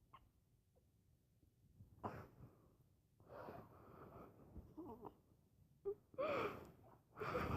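A sleeping dog making wheezy, breathy noises in separate bursts, some with short wavering whimpers in them, getting louder toward the end.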